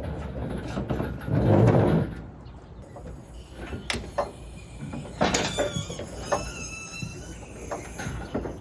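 Scattered metal clanks and knocks from work on hoisting an engine out of a car, with a louder muffled rumble about a second and a half in and a high ringing tone after a clank about five seconds in.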